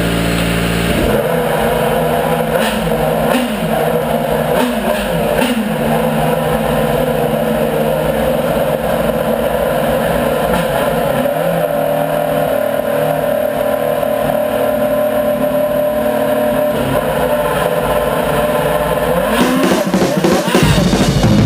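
Formula One V8 engine of a Lotus E21, a Renault RS27, running in the pit garage, with a few short throttle blips early on. It gets louder near the end.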